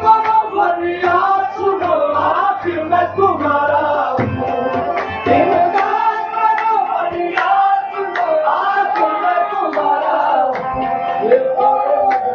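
Live qawwali music: male voices singing long, bending melodic lines over a tabla beat.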